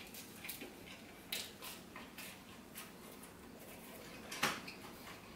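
A person chewing pastry, with a scattering of short, faint mouth clicks and smacks, the loudest about four and a half seconds in.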